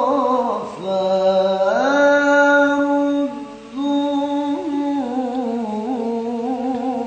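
A man singing an unaccompanied Islamic sholawat, drawing out the word 'ghaffar' (forgiver of sins) in long ornamented held notes. The pitch steps up about two seconds in, there is a short breath about three and a half seconds in, and then another long note follows.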